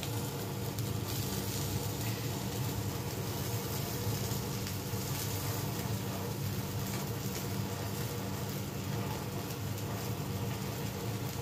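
Marinated chicken pieces sizzling steadily in oil in a frying pan, nearly cooked through, over a low steady hum.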